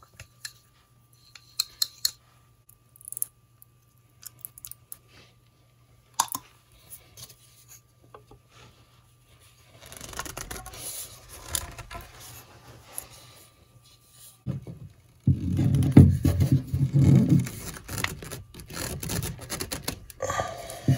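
Handling sounds of plumbing PVC pipe: scattered light clicks and taps from a solvent can and its dauber, then from about ten seconds in, scraping and rubbing as PVC pipe and fittings are handled and pushed together, loudest a little past the middle.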